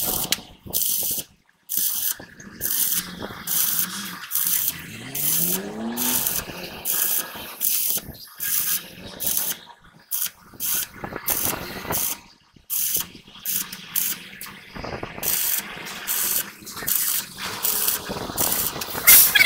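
Stick welding arc on a truck's steel axle housing, crackling in short bursts about two a second with a few brief pauses, as weld is built up to fill holes in the casing.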